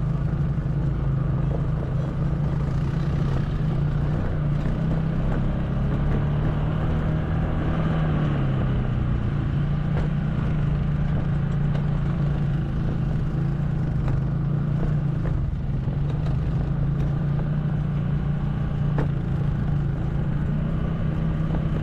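ATV (quad bike) engine running steadily under way, its pitch dipping briefly and coming back up about eight seconds in, over a low rumble.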